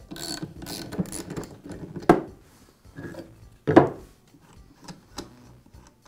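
Snap-on ratchet wrench clicking as it turns the mower blade's retaining nut, then a few separate sharp metal clunks and clinks as the nut and hub parts are handled.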